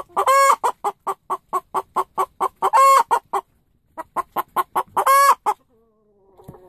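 A hen cackling close up: a fast run of short clucks, about five a second, broken three times by a long drawn-out squawk. She is scolding the keeper, and the calls stop about a second before the end.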